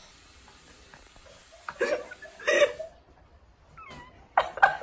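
Two short meow-like calls, then a brief squeak and a few loud sharp sounds near the end.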